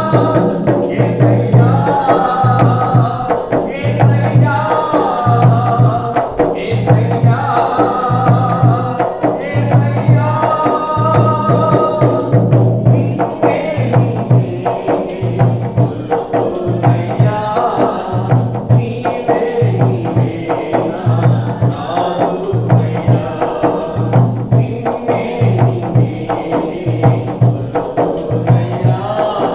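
Telugu Christian devotional song: singing over a steady, repeating bass beat with light percussion.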